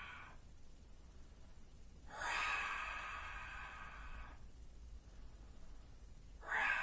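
A man's forceful open-mouthed 'dragon's breath' exhales: each a loud breathy hiss that starts suddenly and fades away over about two seconds. One comes about two seconds in and another starts near the end, after the tail of a previous one.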